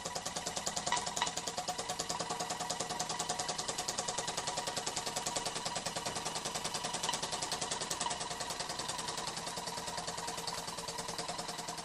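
T. E. Haynes model steam engine running steadily, its exhaust chuffing in a fast, even rhythm. Steam seems to be blowing by the piston and escaping from the bottom of the cylinder.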